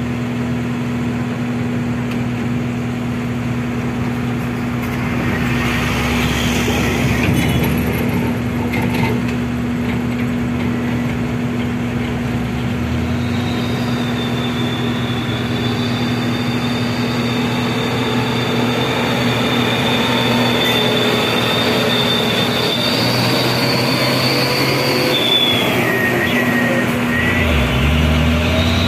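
A SANY excavator and a Mitsubishi dump truck running with a steady low engine hum while soil is loaded into the truck. About halfway in, a high whine comes in and holds for around twelve seconds, dropping in pitch near its end.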